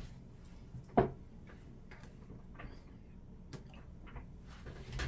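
Handling noises: one sharp knock about a second in, then scattered faint clicks and taps.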